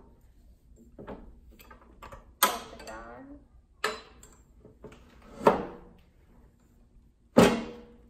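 Clamp gate of a guillotine paper cutter being cranked down: four sharp clunks about a second and a half apart, each ringing briefly, the last the loudest.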